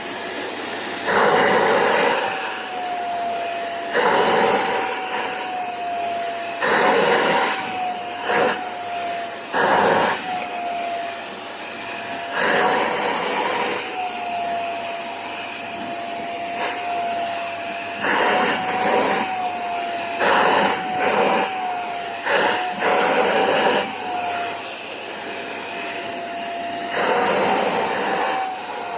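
Vacuum cleaner running with a steady whine that wavers slightly in pitch, while the nozzle is worked over a pet's coat to suck out dirt. The suction rushes louder every second or two.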